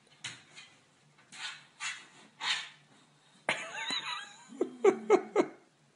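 A French bulldog puppy huffing in short breathy bursts, then a sudden thump and a high, wavering squeal about three and a half seconds in. A person laughs in a quick run of short bursts just after.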